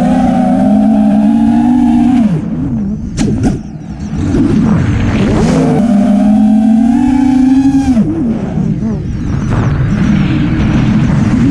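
FPV racing quadcopter's motors and propellers whining, the pitch rising and falling with the throttle. The whine drops away about two seconds in, with a few sharp clicks, and builds back about four and a half seconds in. It dips again near eight seconds, then comes back up.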